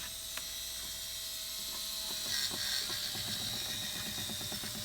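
Electric drill driving a screw: a steady motor whine that fades about two seconds in, then a fast, even ratcheting clatter.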